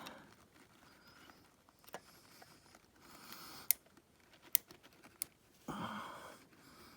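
Small hand tools working a tiny circlip onto a shaft inside a motorcycle engine: faint scraping with a few sharp metallic clicks spread through it, and a brief rustle near the end.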